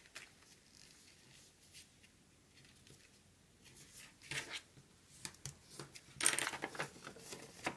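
A sheet of paper being handled and creased by hand for an origami fold: soft, scattered rustles, with a short rustle about four and a half seconds in and a louder one around six seconds in.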